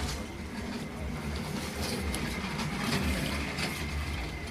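Steady low rumble with a faint steady high whine, and a few faint clicks as transistor leads are pushed through a printed circuit board.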